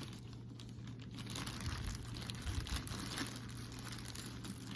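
Soft, irregular rustling and crinkling of packaging wrap as a handbag is handled and unwrapped, over a low steady hum.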